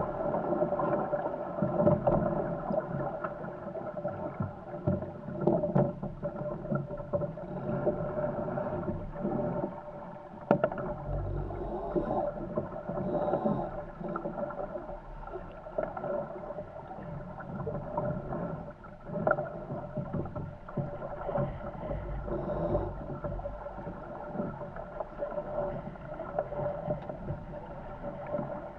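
A Corsair F-24 MkII trimaran sailing fast in strong wind: water rushing along the hulls and wind buffeting the microphone, under a steady humming tone, with a few sharp knocks.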